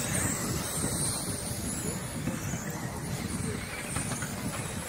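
Radio-controlled 410 sprint cars racing around a small dirt oval, their motors giving a high whine that rises and falls in pitch as they pass, over a steady low rumble.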